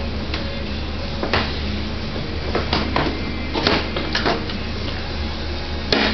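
Seat and rear fender of a Honda 110 three-wheeler being worked free of their tab and lifted off: a string of knocks, scrapes and rattles, with the loudest knock near the end.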